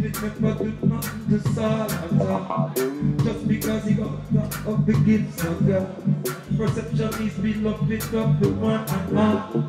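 Live roots reggae band playing an instrumental stretch of the song: a steady drum beat over bass, with electric guitar and keyboards.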